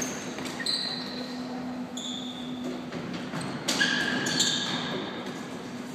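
Floorball play in a sports hall: plastic ball and sticks clicking and knocking, with shoes squeaking on the court floor in short high squeals, all echoing in the hall. A steady low hum runs underneath.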